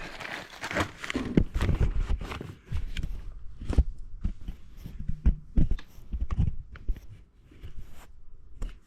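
Handling noise close to the microphone: irregular clicks, knocks and scraping with low thumps, busiest in the first few seconds and thinning out near the end.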